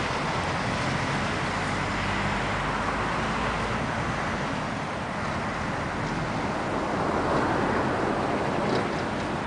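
A tram rolling slowly along curving track, with a steady running noise of wheels on rails and motor. It swells briefly near the end, and a few short clicks come just before it ends.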